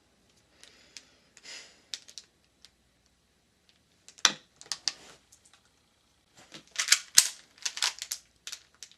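Plastic clicking and clacking of a Rubik's brand 3x3 cube being handled and turned, scattered at first and turning into a quick run of clatter from about two-thirds of the way in.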